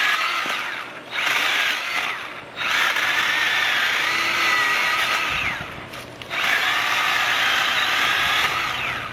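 Battery-powered mini chainsaw running in bursts of a few seconds with short pauses, a high whine whose pitch wavers slightly during the longer runs.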